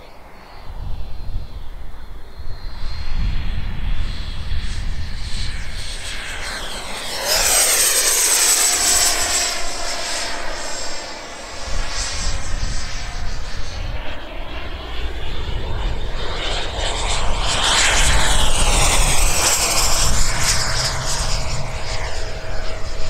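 The 90 mm WeMoTec Midi Evo electric ducted fan of a Sebart mini Avanti S model jet, driven by a HET 700-75 motor, whining in flight. It swells loudly twice as the jet passes close, about seven and eighteen seconds in, and the whine drops in pitch as it goes by.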